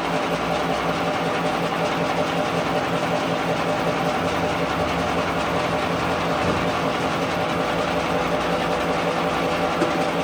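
A workshop machine running steadily, a constant mechanical hum with a noisy hiss over it.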